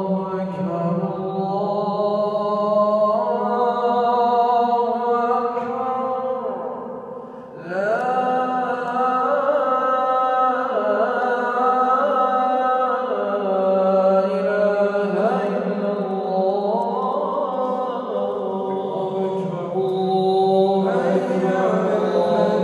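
A single man chanting an Islamic prayer in Arabic, in long, ornamented held phrases that waver in pitch, with a short breath pause about seven seconds in.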